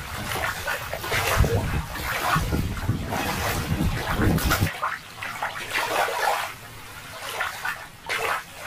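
Shallow water splashing and sloshing against rock, in uneven surges over a low rumble that drops away about halfway through, leaving a quieter hiss.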